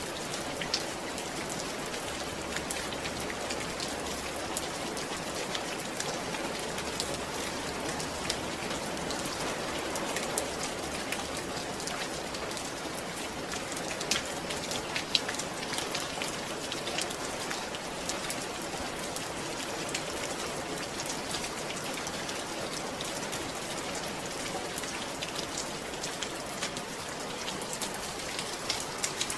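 Steady rain falling, with scattered sharp drop hits standing out from the even patter.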